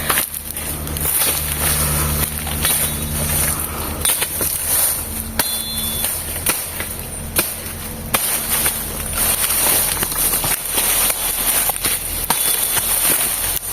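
Irregular sharp cracks and crunches in dry, broken peach-palm fronds as they are chopped and trodden through, over a continuous rustle of foliage.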